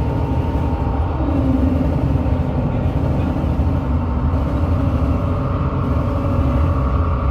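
Live noise music: a loud, dense low rumble with several sustained droning tones over it that drift slowly in pitch.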